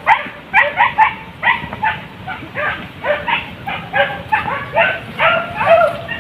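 Hunting dogs, beagles among them, yelping and baying in quick, overlapping calls, two to three a second, as they give voice on a wild boar.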